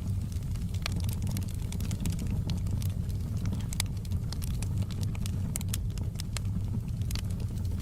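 Wood fire burning in a fireplace, crackling with irregular sharp snaps over a steady low rumble.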